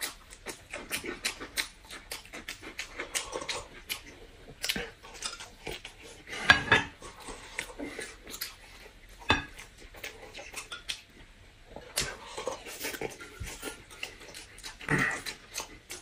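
Eating sounds of two people: wet chewing and lip-smacking on soft steamed buns, with many sharp mouth clicks and a few louder smacks, and a metal spoon clinking in a glass cup.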